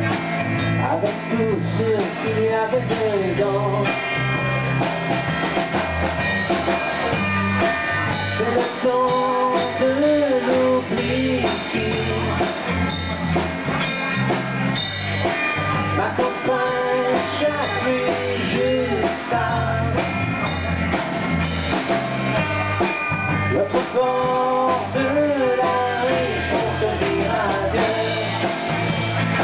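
A small band playing live: electric guitar strummed over a steady drum beat, with a woman singing the melody in phrases that come and go.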